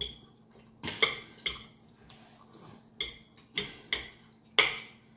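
Metal forks clinking and scraping against glass dinner plates, as a string of irregular sharp clicks with the loudest about four and a half seconds in.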